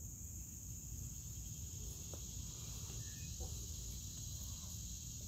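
Steady high-pitched insect chorus, with a low rumble underneath and a couple of faint soft knocks.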